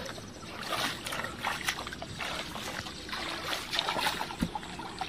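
Shallow muddy ditch water sloshing and trickling around a person wading through it and groping with his hands, with scattered small splashes.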